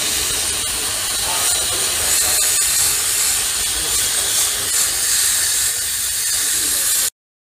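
SP 1000 portable steam washer jetting high-pressure steam from its nozzle onto an oily metal part, a loud steady hiss. The hiss cuts off suddenly near the end.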